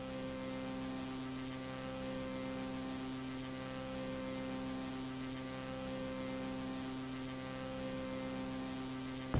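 Steady electrical hum, a low buzz with many evenly spaced overtones over a faint hiss, unchanging throughout.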